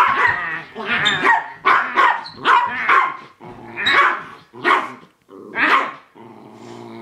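Dachshund barking and growling: a rapid string of about eight barks, then a low, steady growl near the end.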